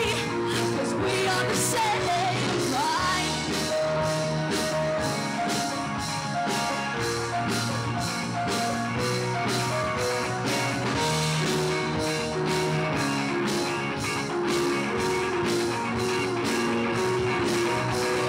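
Live pop-rock band playing an instrumental break: electric guitar, bass guitar and keyboards over a drum kit keeping a steady beat.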